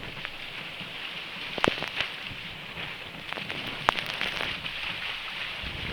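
Water splashing and dripping around a sea kayak, with a steady hiss and a few sharp ticks, the loudest about one and a half seconds in and near four seconds in.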